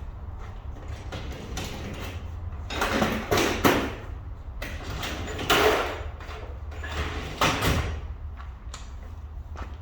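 Three short bursts of mechanical scraping and clatter, about three, five and a half, and seven and a half seconds in, over a steady low hum.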